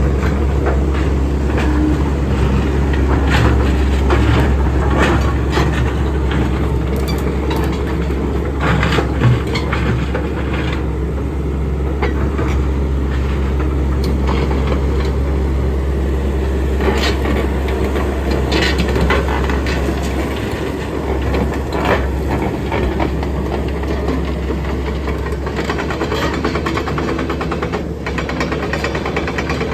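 Excavator's diesel engine running steadily while the machine is worked, with scattered knocks and clanks.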